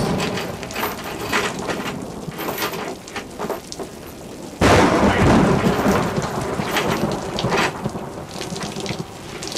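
Thunderstorm: heavy rain, with water streaming down through a deck grating into a ship's hold and a rumble of thunder. About halfway through, a sudden loud thunder crash breaks in.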